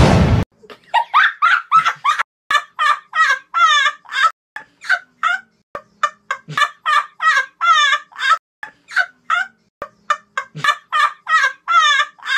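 A fast string of short, shrill bird calls, about three a second, with silence between them. The calls are fowl-like, in the manner of turkey gobbles.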